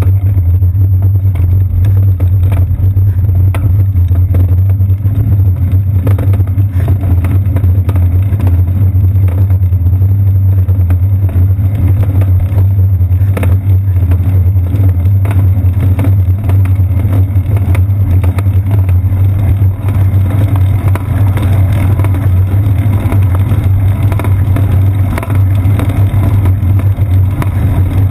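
Steady low rumble of a bicycle's ride vibration and tyre noise, picked up through the seat-post mount of a GoPro Hero 2 in its housing, with occasional small knocks from bumps in the surface.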